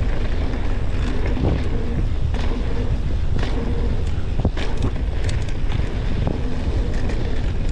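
Mountain bike ridden fast down a dirt trail: wind rushing over the microphone and tyres rolling on dirt, with scattered sharp clacks and rattles from the bike.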